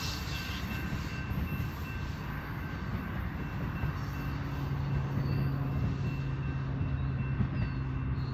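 A train rumbling past on the track, with a steady low hum joining about four seconds in.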